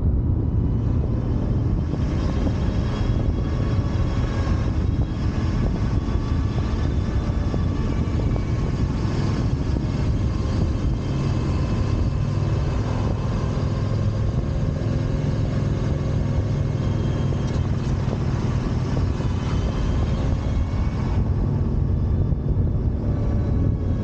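Steady wind and road rumble on a moving motorcycle, with faint whining tones that drift slowly up and down.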